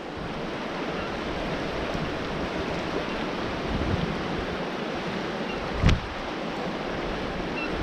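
Steady rushing of a glacial river running past, with one short sharp knock about six seconds in.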